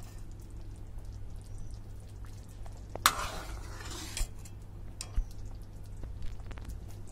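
Steel ladle stirring and lifting thick, finished potato curry in a kadhai, scraping and clinking against the pan over a low steady hum. A sharp clink about three seconds in is followed by a second of louder scraping and sloshing, then a few lighter taps.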